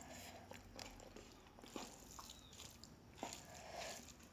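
Faint chewing and mouth smacking of someone eating rice and curry, heard as scattered soft clicks.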